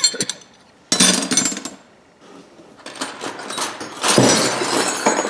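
Steel hand wrenches clanking and rattling against each other as they are rummaged through in a box, in several bouts, loudest near the end.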